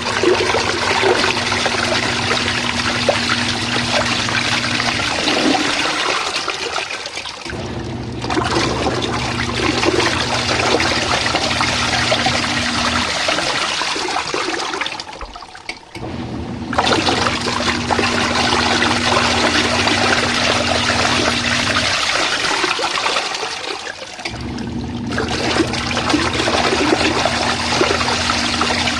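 Portable twin-tub washing machine washing a full tub of hot water: the wash motor runs with a steady hum and churns the water. About every eight seconds it stops briefly, leaving only swishing water, then starts again in the other direction.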